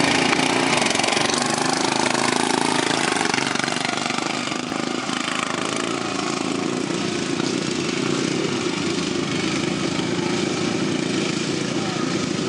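Racing lawn mowers' small engines running steadily together.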